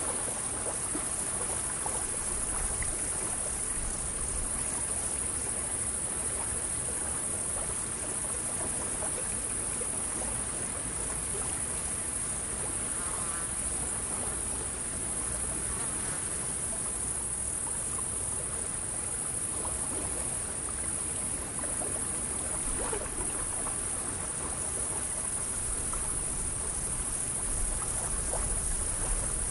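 Steady high-pitched insect chorus over water lapping at a wooden pier.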